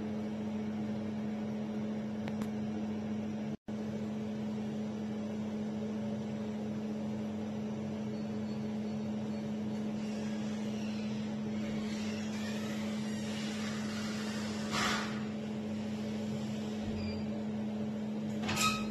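A steady low electrical hum with one constant tone, cutting out for an instant about three and a half seconds in.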